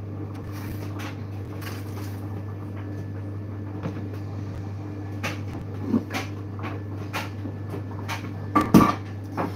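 Kitchen handling noises: scattered knocks and clicks of things being moved about on the counter, over a steady low hum. The loudest clatter comes near the end.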